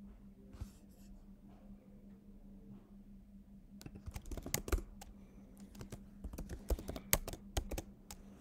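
Typing on a computer keyboard: a quick, uneven run of keystrokes beginning about halfway through.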